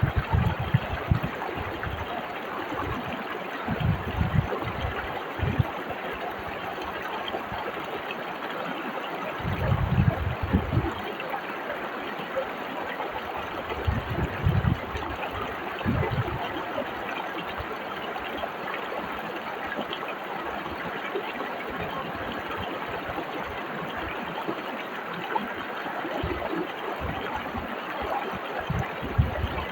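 Fast-flowing river or whitewater stream rushing steadily, with occasional low rumbling surges, the strongest about ten seconds in and again a few seconds later.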